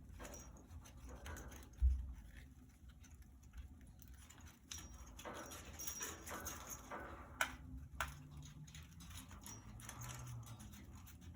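Budgies moving about a wire cage: scattered light taps and clicks of claws and beaks on bars and perches, with one louder low thump about two seconds in.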